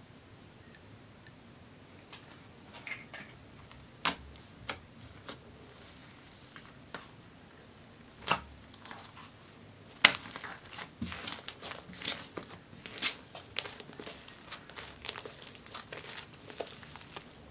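Sticky glitter slime being stretched and kneaded by hand, making sharp sticky pops and crackles. A few single pops come at first, then from about ten seconds in there is a dense run of crackling and popping.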